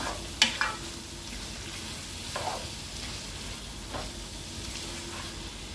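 A spatula stirring thick mutton tripe curry in a nonstick pan while the masala sizzles gently over low heat. A few spatula scrapes against the pan stand out, the loudest about half a second in.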